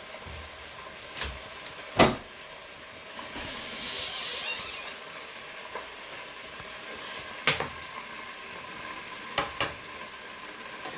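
Kitchen clatter: several sharp knocks of metal cookware and utensils, the loudest about two seconds in and a quick pair near the end, over the steady hiss of a steaming pot of spaghetti. A louder hiss swells for about a second and a half around four seconds in.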